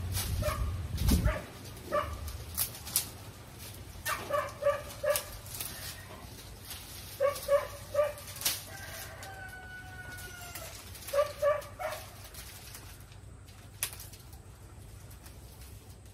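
Dry coconut fronds crackling and rustling as they are handled and gathered into a bundle. An animal calls in quick bursts of three or four short notes, several times, louder than the rustling.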